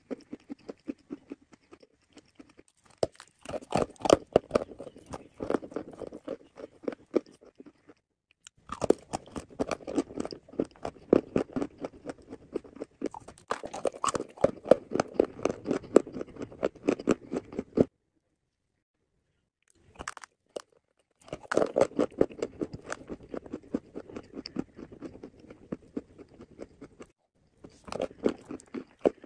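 Dry orange clay being bitten and chewed, with dense crisp crunching in several long bouts. It cuts to silence twice: a couple of seconds past the middle, and briefly near the end.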